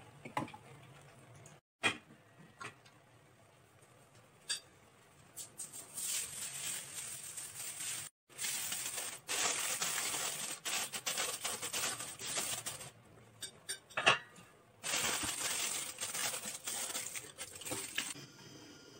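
Aluminium foil crinkling as it is spread and pressed down over a pot, in two long crackling stretches. A few light clinks come before it, and a single sharp clink between the two stretches is the loudest sound.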